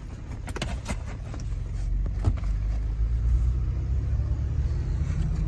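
Low rumble of a car's engine and tyres heard from inside the cabin, growing louder over the first couple of seconds and then holding steady, with a few light clicks and knocks.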